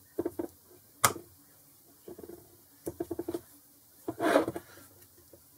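Small metallic clicks and taps from a steel locating pin and parts being fitted into a cast-iron four-jaw lathe chuck, with a sharp click about a second in and a quick run of ticks near the middle. A short scraping rub about four seconds in as the chuck body is moved on the bench.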